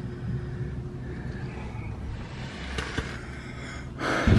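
Low, steady rumble of a vehicle engine, with a click about three seconds in and a short, louder rustling burst near the end.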